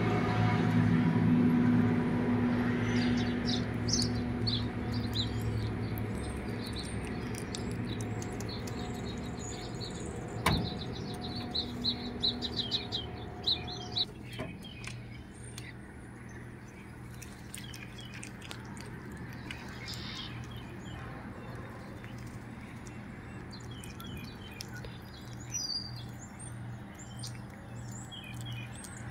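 Small birds chirping outdoors, many short high chirps scattered through, over a steady low hum that fades out about halfway through. One sharp click about ten seconds in.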